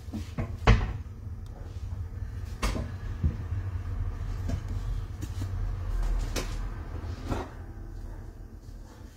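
Kitchen cabinet door opening and shutting, with a sharp knock about a second in and a few more knocks and clatters as items are taken out and set down.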